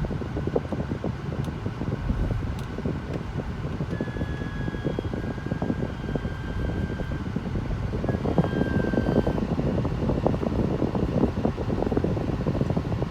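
2011 Volvo C70's air conditioning running with a steady rush of air, and a thin, high screech that comes and goes from about four seconds in until about nine seconds in.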